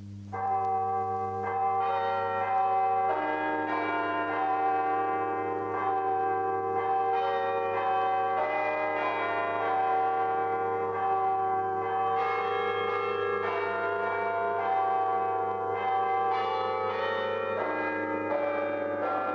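A concert of tuned church bells playing a tune, a run of ringing notes that starts about half a second in. A steady low hum sits underneath.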